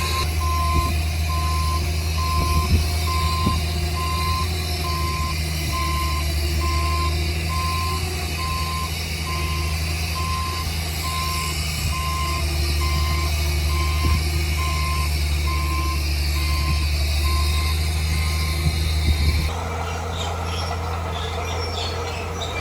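A heavy construction vehicle's reversing alarm beeping about once a second over its engine running steadily. Near the end the beeping stops and the sound changes abruptly to a different engine noise.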